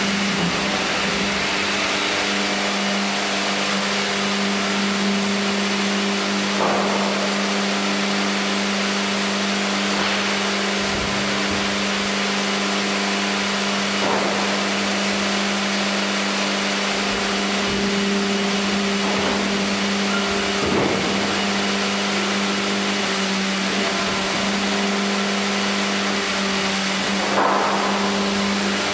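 Sawmill machinery running: the tandem band saw line and its hydraulic carriage make a steady hum with a strong constant low drone. A few short clunks come roughly every seven seconds, the last near the end the loudest, as logs are moved on the infeed conveyor.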